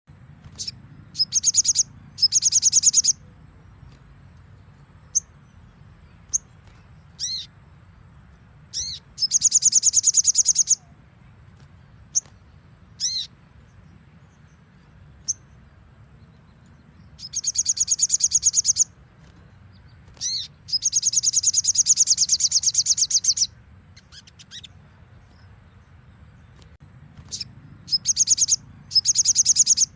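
Sogon (little spiderhunter) singing: several loud, rapid, high-pitched trills, each lasting one to two and a half seconds. Between the trills come single sharp, downslurred chip notes.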